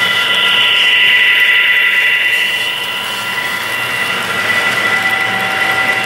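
Model freight train running past close by: a steady mechanical whine with several held high tones over the rolling of the cars, swelling over the first two seconds as the diesel locomotive models pass, then going on as the freight cars roll by.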